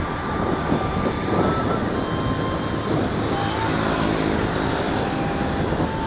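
Steady road noise from riding a motorbike through street traffic: wind rushing over the microphone with engine and tyre noise, and a passing engine's hum in the second half.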